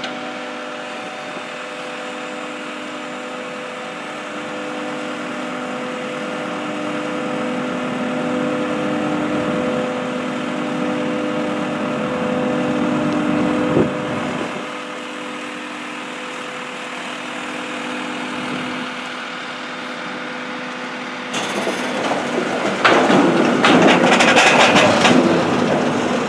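Firewood processing machinery running with a steady motor and hydraulic hum. About three-quarters of the way in, a loud rattling clatter of wood starts and keeps on.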